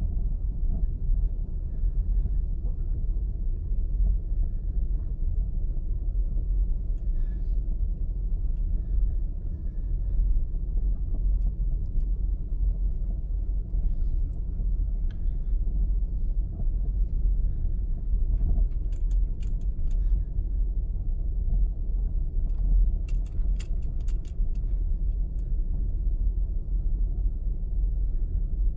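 Cabin noise of a 2018 Subaru Outback driving over rough, potholed asphalt: a steady low road and tyre rumble, with a bunch of keys jangling in two short spells in the second half.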